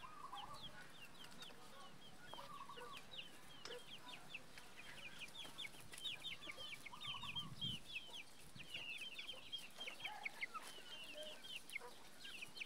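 Chickens calling: a dense run of short, high, falling peeps that grows busier a few seconds in, with a few lower clucks among them.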